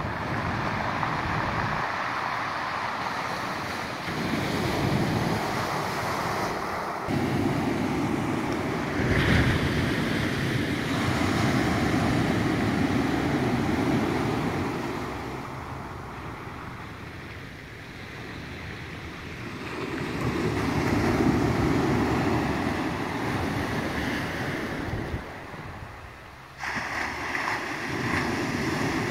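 Small waves breaking and surf washing over a shingle beach, the noise swelling and fading with each wave.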